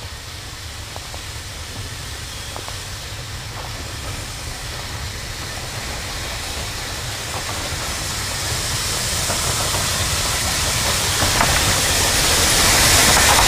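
Narrow-gauge steam locomotive approaching with a coal train and passing close by, getting steadily louder. Its sound is mostly steam hiss over a low rumble, with a few faint clicks from the wheels on the rails.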